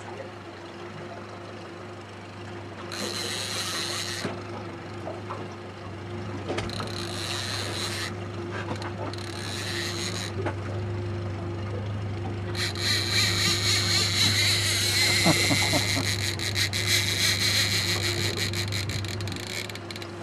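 Fishing reel's drag buzzing in short bursts, then in one long run of about seven seconds in the second half, as a hooked halibut pulls line off. A steady low hum runs underneath.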